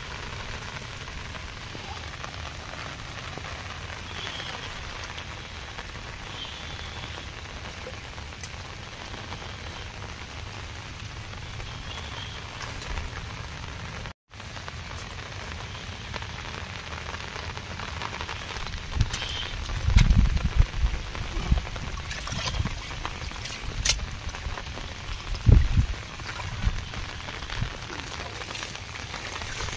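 Steady hiss and patter of water, like rain falling on the flooded field and the channel. A few dull, low thumps stand out between about 19 and 26 seconds in.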